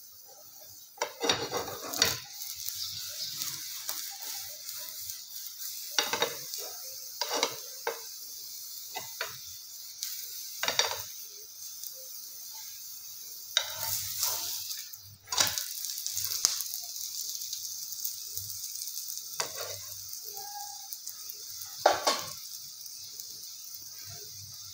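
A palak paratha frying in a pan with a steady sizzle. Now and then there are short scrapes and knocks against the pan as it is pressed and turned over.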